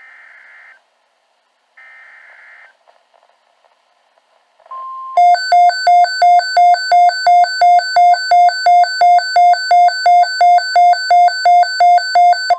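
NOAA Weather Radio emergency alert signals: the last two of the three short, buzzy SAME digital header bursts that open an alert, then a brief 1050 Hz warning alarm tone, overtaken about five seconds in by a weather radio receiver's loud pulsing alarm beeping about three times a second.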